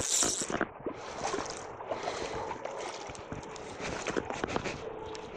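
Sea water lapping and splashing close by, with a brief rushing hiss right at the start and scattered sharp clicks throughout from hands working a fly rod and reel.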